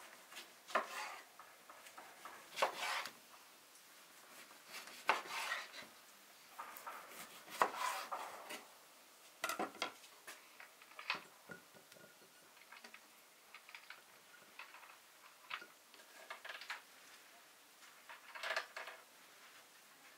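Kitchen knife cutting oranges on a wooden cutting board: irregular knocks and taps of the blade against the board, with light clinks of glass dishes being handled.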